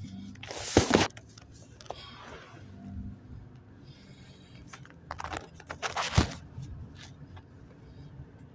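Handling noise on the microphone: loud rustling and knocks about a second in and again from about five to six seconds in, over a faint low hum.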